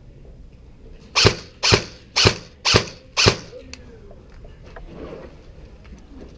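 Airsoft gun firing five single shots in quick succession, about two a second.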